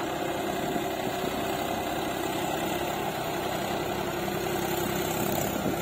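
Tractor's diesel engine running steadily at an even speed.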